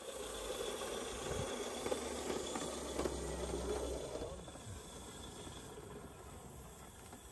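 Steam hissing from a coal-fired 45 mm gauge garden railway locomotive. It is louder through the first four seconds, then eases.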